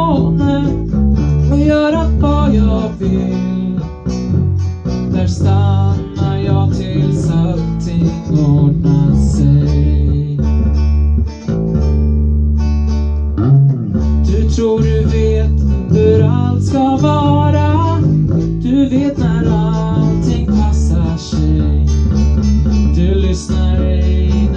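Live acoustic guitar strumming together with an electric guitar in a pop song, with a voice singing along at times.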